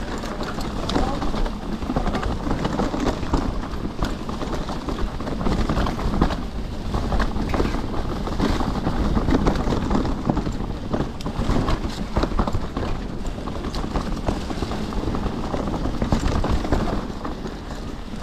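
Mountain bike descending a rough trail: tyres rumbling over the ground and the bike clattering and knocking constantly over bumps.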